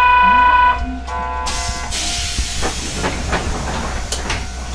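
A departure buzzer sounds a long tone and then a short one. The tram's air brake is then released with a loud hiss that fades over about two seconds, and scattered knocks follow as the Hankai Mo 161 tram starts to move.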